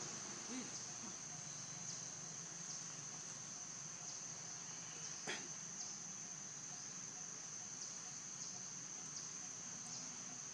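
Steady high-pitched insect drone, with a single sharp click about five seconds in.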